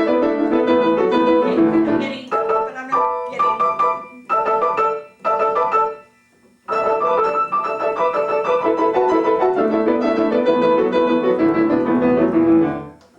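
Solo acoustic piano playing. About two seconds in, the flowing playing breaks into short separated chords, then stops briefly before the continuous playing resumes.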